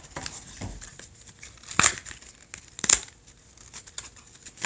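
Toy packaging being handled and opened: crinkling and tearing rustles with a couple of sharper crackles, the loudest nearly two seconds and about three seconds in.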